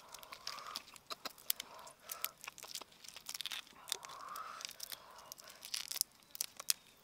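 Grilled prawn shells being cracked and torn apart by hand, a dense run of sharp, irregular crackles and snaps as the heads and shells are pulled off.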